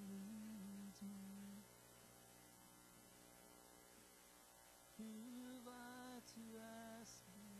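Faint, slow hymn music: a melody of long held notes that thins to a faint steady tone for about three seconds in the middle, then picks up again.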